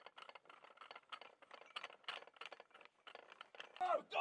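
Faint, irregular clicking and scraping of metal as 155 mm howitzer shells are handled by hand. Near the end, a voice calls out.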